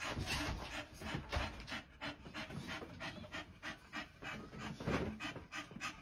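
A dog panting rapidly and steadily, about three quick breaths a second: the heavy panting of a bitch in the first stage of labour.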